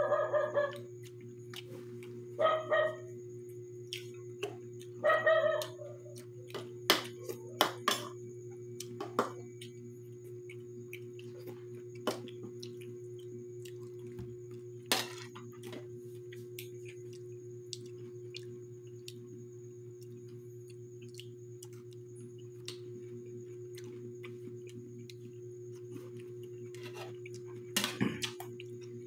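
Metal spoons clinking and tapping against ceramic bowls and plates and on balut shells: scattered sharp clicks, most between about seven and nine seconds in and again near the end, over a steady low hum. In the first six seconds there are three short voice-like sounds, louder than the clinks.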